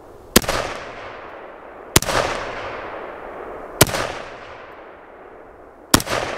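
Ruger SFAR semi-automatic rifle in .308 firing four single shots, spaced about two seconds apart, each followed by a long fading echo.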